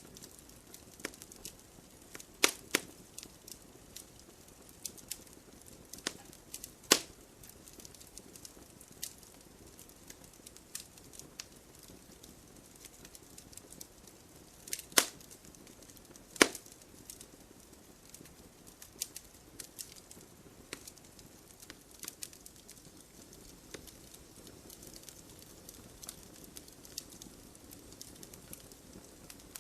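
Wood campfire crackling: a soft steady hiss with scattered sharp pops as the burning wood snaps, the loudest few seconds apart.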